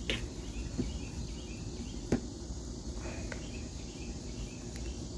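Outdoor background with faint, quickly repeated high chirps for the first few seconds, broken by a few sharp knocks, the loudest about two seconds in.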